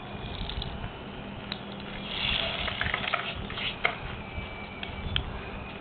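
Plastic pullback toy car's wound-up spring motor whirring for about a second as it is let go and runs off, with a few sharp clicks and taps around it.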